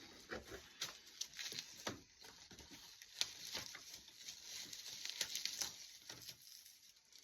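Faint rustling and small clicks from a package being opened and handled by hand.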